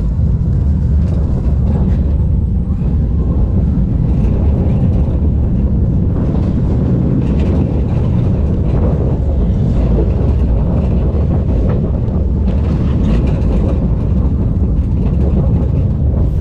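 Loud steady rumble and rushing noise of a fairground ride in motion, heard from the rider's seat, with the lowest sounds heaviest throughout.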